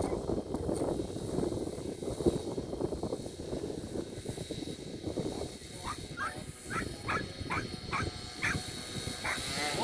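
A dog barking in a quick series of about eight short barks in the second half, over a steady rough background noise.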